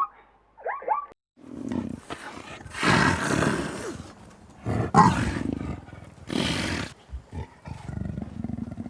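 A large animal giving about five deep, rough calls in a row, after a couple of short higher-pitched calls at the start.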